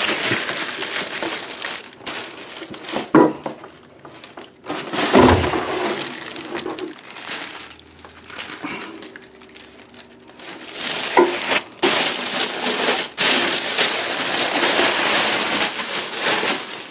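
Cardboard box and its paper and plastic wrapping rustling and crinkling as a new toilet seat is unpacked. A few knocks come with it, and a heavier thump about five seconds in.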